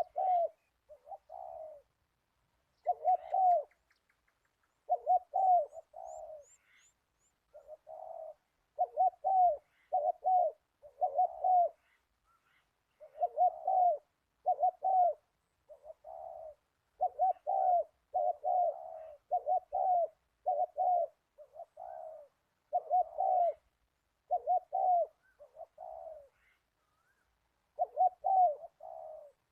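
Zebra dove cooing: short, quick phrases of rolling coo notes, repeated every second or two with brief pauses between them.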